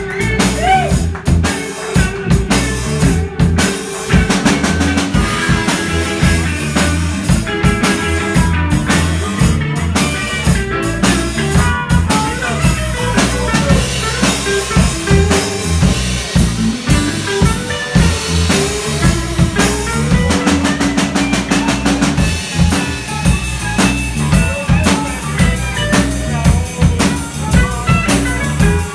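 Blues band playing live in an instrumental passage with no singing. The drum kit is loudest, its kick and snare keeping a steady beat over a bass line and other pitched instruments.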